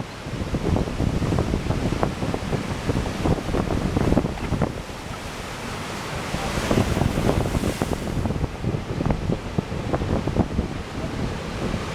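Ocean surf breaking, with a broad hissing rush of a wave washing in about six seconds in. Wind buffets the microphone with gusty rumbling.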